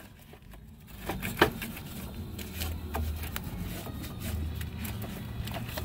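Cloth rag rubbing and scrubbing foamed battery cleaner off corroded truck battery terminals, with scattered light knocks and clicks, the sharpest about a second and a half in. A low steady hum runs underneath.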